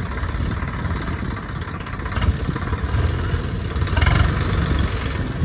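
Swaraj 742 XT tractor's three-cylinder diesel engine running steadily at idle, with a brief clatter about two seconds in and a louder one about four seconds in.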